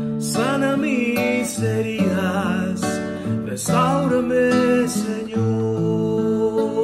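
A man singing a slow worship song with a wavering vibrato, accompanying himself on a classical guitar. The guitar is strummed about once a second, five strokes in all.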